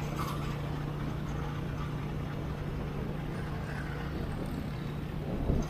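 Motorcycle engine running at a steady cruising speed: a steady low hum with wind and road noise, and a brief louder rumble near the end.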